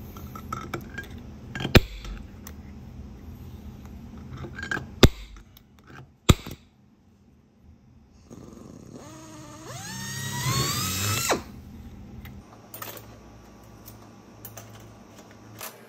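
A few sharp taps, then a drill spinning up with a whine that rises in pitch for about three seconds as it bores a pilot hole in a piano hinge, cutting off suddenly.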